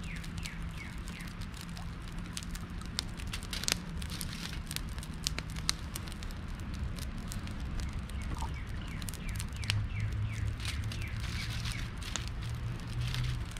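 Campfire crackling with scattered sharp pops, with birds chirping in short falling calls in the background and a steady low hum underneath.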